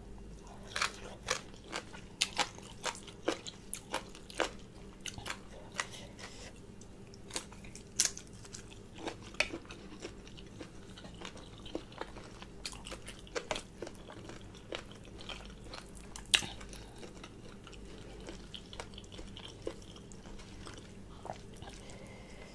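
A person chewing a mouthful of shredded green papaya salad (som tam) up close, with many crisp crunches and wet mouth clicks. The crunches come thick and fast at first and thin out over the last several seconds.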